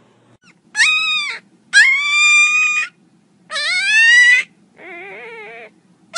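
Black-and-tan puppy whining in long high-pitched cries, about a second each. Three loud ones come with the pitch rising through each, then a fourth that is lower and quieter.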